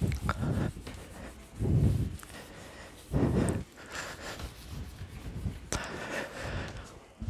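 A cloth rubbing across a whiteboard as it is wiped clean, in several separate strokes, the strongest in the first few seconds, with a sharp click near the end.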